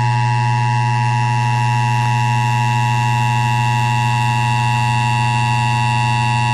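Emergency Alert System attention signal on an FM radio broadcast: the two-tone EAS alert tone, held steady without a break, with a low hum beneath it. It marks a severe thunderstorm warning about to be read.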